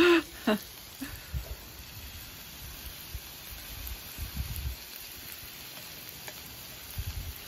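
Chopped beef and cheese sauce sizzling lightly on a steel flat-top griddle that has just been switched off, a steady soft hiss with a few low bumps.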